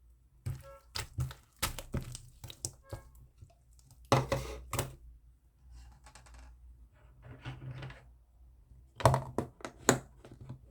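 Slime being worked by hand, squeezed and pressed so that it gives off bursts of sharp wet clicks and pops. The loudest bursts come about four seconds in and again near the end.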